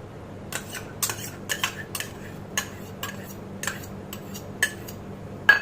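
A metal spoon clinking and scraping against a bowl while yogurt is spooned out onto the chicken: about a dozen sharp, irregular clinks, the loudest near the end.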